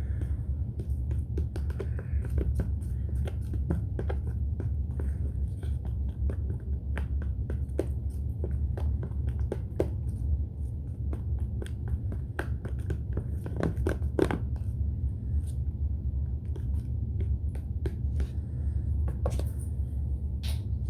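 Scattered light clicks and taps of hands handling glitter containers and slime at irregular moments, over a steady low hum.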